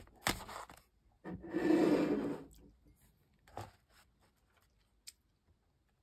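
Paper hot-cocoa packets handled and slid across a tabletop: a short rustle with a click, then a louder scraping rub lasting about a second, and a couple of light taps.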